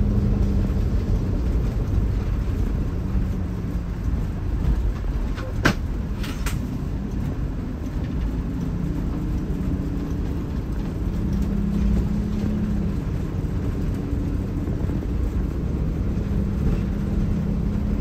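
Diesel engine of a 1985 Blue Bird Wanderlodge motor coach running steadily while driving, heard from the driver's seat as a low rumble with road noise; it sounds like a bulldozer. A couple of short clicks come about six seconds in.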